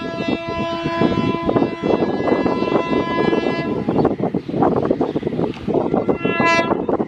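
WAP-5 electric locomotive's horn sounding one long blast of about four seconds, then a short blast about six seconds in, over the steady rapid clatter of a passing train's wheels on the rails.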